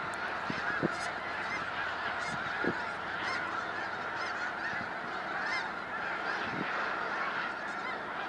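A huge flock of snow geese honking in a dense, unbroken chorus of overlapping calls, with a couple of brief low thumps about a second and nearly three seconds in.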